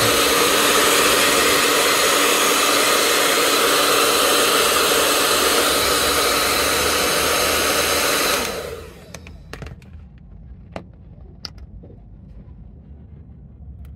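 Hot-air blower running with a steady rush of air, heating an acetone-wetted sole seam to soften the old glue. It cuts off about eight and a half seconds in, leaving a few faint clicks.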